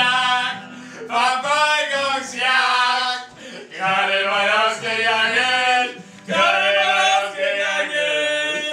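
Men chanting loudly together in sung phrases of one to two seconds, with an acoustic guitar being played; it cuts off suddenly at the end.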